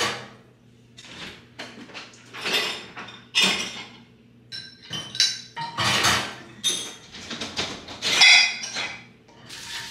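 Dishes and cutlery clattering and clinking as they are handled at a kitchen sink: a string of separate knocks and clinks, some ringing briefly.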